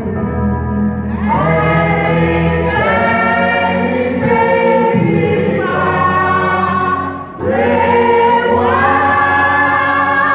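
Church gospel choir of women and men singing together in long held phrases, with a brief break for breath about seven seconds in.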